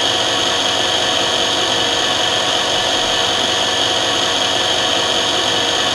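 CT 5412 automatic lens drilling machine's spindle motor running a milling cutter as it mills into an eyeglass lens, a steady high whine.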